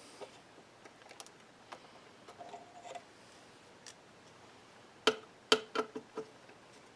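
Small tools and metal parts clicking and tapping during hand work on an electronics chassis. There are faint scattered ticks at first, then a quick run of about five sharp, slightly ringing metallic knocks around the five-second mark.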